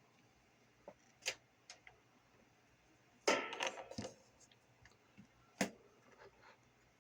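Small tools and parts handled on a workbench during soldering work: a few scattered clicks, a short rattling clatter about three seconds in, and one sharp click near the end.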